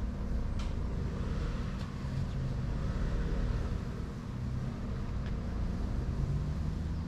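Steady low rumble of road traffic, with a few faint clicks.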